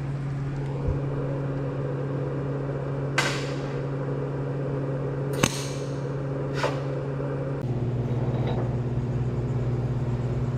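Welding machine humming steadily, with three short sharp crackles. Near the end the hum changes pitch and grows a little louder.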